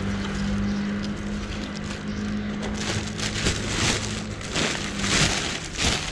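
Plastic garbage bags rustling and crinkling as gloved hands rummage through them, with louder crinkles in the second half. A steady low hum runs underneath and fades out about four and a half seconds in.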